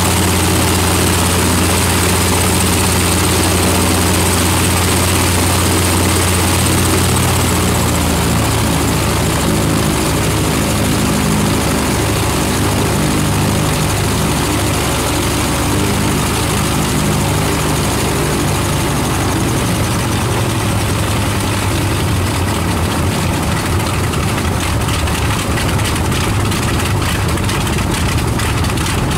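Bristol Hercules 14-cylinder sleeve-valve radial engine and propeller running, very loud. The revs drop about a quarter of the way in and fall further later on, until separate firing beats can be heard near the end as the engine runs slower.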